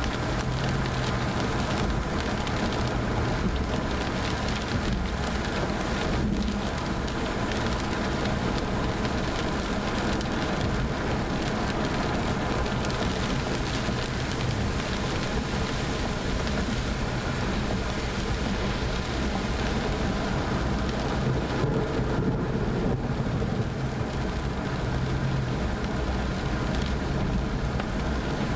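Rain hitting the windshield and roof of a car driving on a highway, heard inside the cabin over steady road and engine noise.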